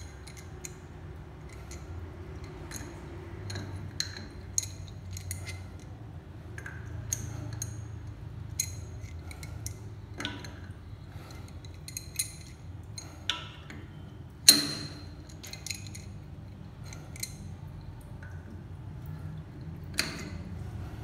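A metal wrench clicking and clinking against the chrome angle stop valve and supply-hose fittings under a washbasin as they are worked. The clinks come irregularly, with a short metallic ring, one louder clank about fourteen seconds in, over a low steady hum.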